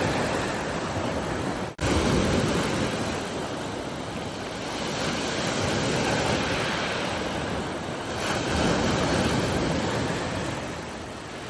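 Sea waves washing in, the surf noise swelling and easing a few times. The sound drops out for an instant about two seconds in.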